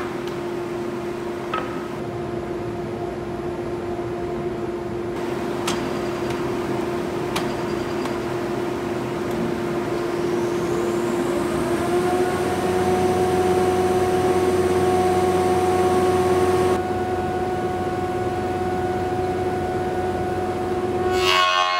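Woodworking thickness planer switched on, its cutter-head motor spinning up with a rising whine about halfway through and settling into a steady high hum. It runs over a machine hum that is already going, and a few sharp knocks come in the first several seconds.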